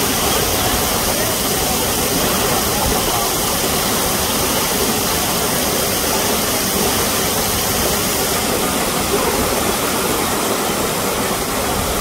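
Waterfall of water falling down a rock face, a steady rushing noise.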